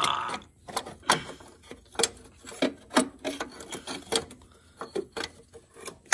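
Broken pieces of a cracked engine mount being wiggled and pulled by hand, giving irregular knocks and clicks, about one or two a second, as loose parts rattle against each other.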